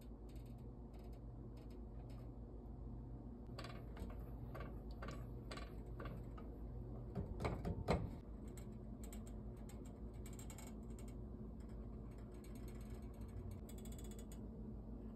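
Faint scattered clicks and handling, then liquid poured into a stainless steel saucepan of water for about a second, a little over seven seconds in, the loudest sound. A low steady hum runs underneath.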